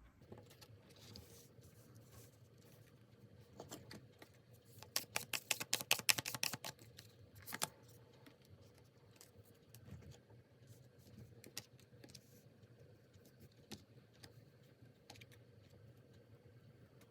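Tarot cards being handled and shuffled: soft scattered card sounds, with a quick run of light clicks and slaps from about five seconds in that lasts under two seconds.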